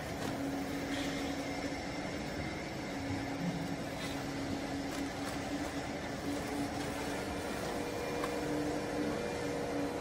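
Vertical baling press's hydraulic power unit running, giving a steady mechanical hum with a faint steady tone in it.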